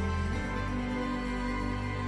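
Background music of slow, sustained chords, changing to a new chord about half a second in.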